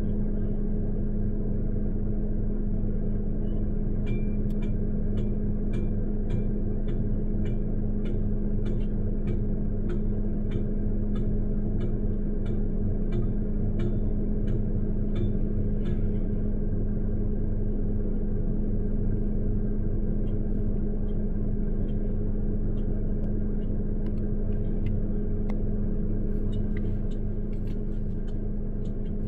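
A vehicle engine idles steadily. Over it, from about four seconds in, come sharp ringing metallic clanks about twice a second for roughly twelve seconds, then scattered ones near the end: a hand-held post driver pounding steel fence posts into the ground.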